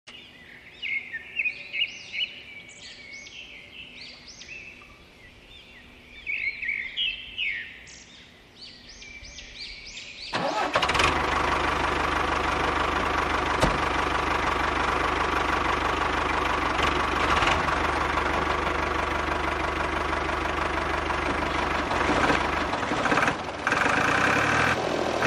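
Birds chirping for about the first ten seconds. Then an engine-like running sound starts suddenly and runs steadily at one level.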